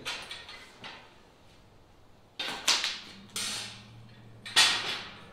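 Clanks and rattles of a kennel's door and latch hooks being worked: several sharp knocks, a few coming close together, the loudest near the end.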